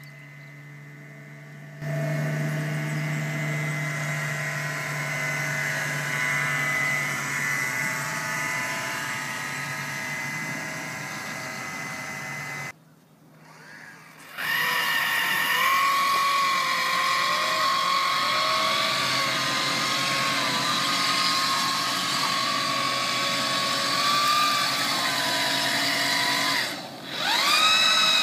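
Whine of small electric motors, starting about two seconds in with a steady low hum. It drops out briefly twice. After the first break it returns as a higher whine that wavers slightly in pitch, and near the end the pitch rises and falls.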